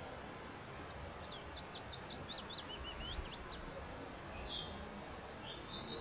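A songbird sings one phrase of quick, falling notes about a second in, followed by a few short bird calls, over a steady outdoor hiss and low rumble.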